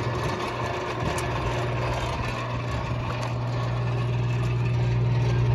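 Salvaged washing-machine electric motor running steadily and driving a wringer washer's mechanism, with a strong steady low hum that grows a little louder toward the end.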